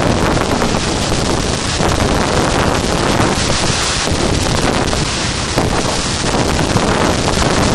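A strong storm gust from the remnants of Hurricane Ike, with the wind buffeting the microphone: a loud, continuous rush that swells and eases.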